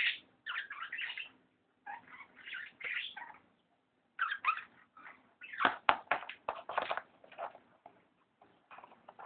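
Irregular scraping and scratching of a tube being worked against a desk, with a cluster of sharp knocks about six seconds in.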